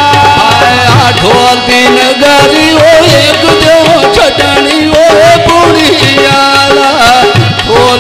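Male voice singing a South Asian folk song (goon) over a harmonium's sustained reed chords, with tabla-like hand drums keeping time.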